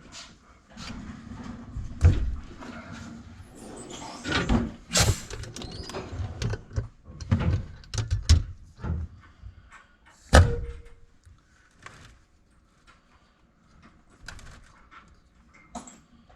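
Scattered metallic knocks and clunks of tools and parts being handled at a workbench. The loudest is a sharp clank about ten seconds in that rings briefly, and the knocks thin out toward the end.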